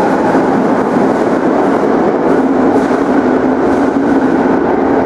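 Departing subway train running away into the tunnel, a steady rumble of wheels on rail echoing through the underground station.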